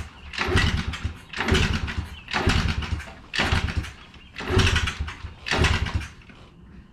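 Pit bike being kick-started about six times, roughly once a second. The engine turns over briefly on each kick but never catches. It will not fire because the kill switch is in the wrong position.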